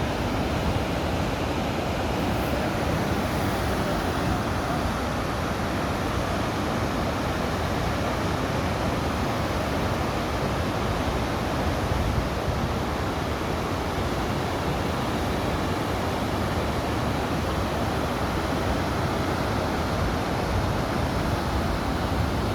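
Steady, even rushing noise with strong low rumble and no breaks, like wind or rushing water on a mountainside.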